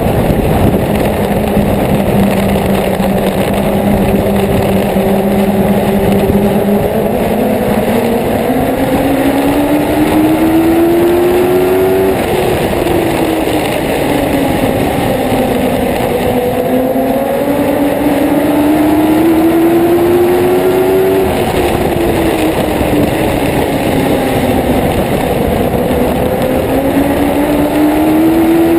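Dwarf race car's motorcycle engine heard onboard at racing speed. Its note holds steady, then climbs as the car accelerates, falls away as the driver lifts for a turn, and climbs again, repeating about three times around the oval.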